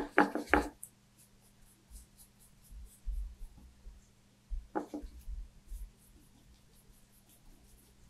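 Gouache paintbrush stroking across paper in short horizontal strokes: faint, quick scratchy brushing, with dull bumps of the hand and brush against the table. There is a brief louder sound at the start and another about five seconds in.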